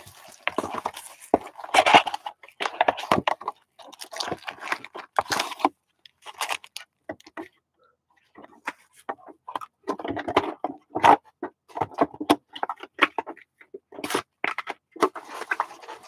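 Plastic shrink-wrap crinkling and tearing as it is stripped off a cardboard trading-card box, then the box being opened and foil card packs handled and set down: irregular crackling with a pause of about two seconds in the middle.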